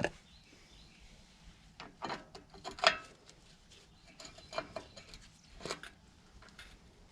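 Metal hub parts being handled and fitted into a Ford Bronco front wheel hub: scattered light clicks, knocks and scrapes, the loudest a sharp knock about three seconds in.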